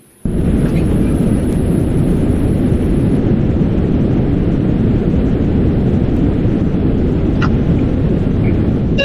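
Loud, steady rushing rumble inside a Sigma passenger elevator cab as it travels down, starting abruptly just after the start, with one faint click near the end.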